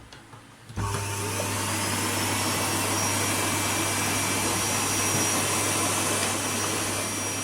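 Vacuum cleaner motor switched on at full 220 V mains power, starting suddenly about a second in and then running steadily with a constant hum and whine, without cutting out: the intermittent power fault in its cord-reel connection has been repaired.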